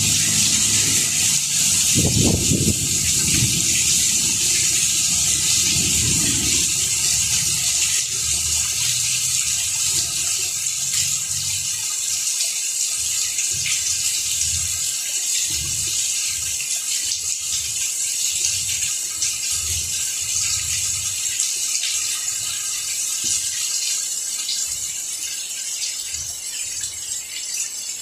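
Steady rain falling on plant leaves, an even hiss. A low rumble comes about two seconds in, with weaker low thumps later.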